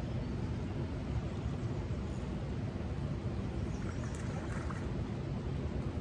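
Steady low rush of river current flowing below a dam.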